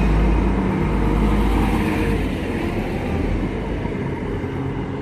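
Two-car Class 175 diesel multiple unit pulling out under power, its diesel engines giving a steady deep rumble that slowly fades as it draws away.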